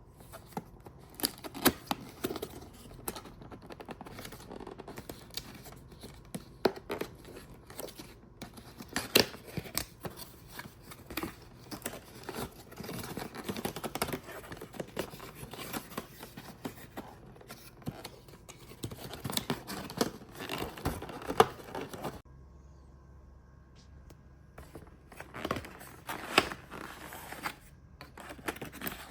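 Packaging of a grooming kit being opened by hand: irregular crinkling, tearing and sharp clicks of plastic and cardboard. The handling pauses about three-quarters of the way through, then briefly resumes.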